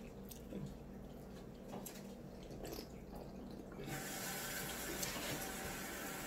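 A water tap is turned on about four seconds in and runs steadily, after a few faint clicks.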